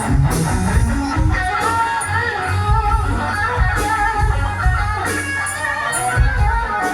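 Band music: a guitar melody over bass and drums.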